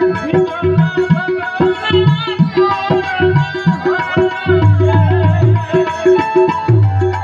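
Tabla playing a quick, steady rhythm, with deep ringing strokes from the bass drum that grow heavier in the second half, under a harmonium melody: live devotional folk music.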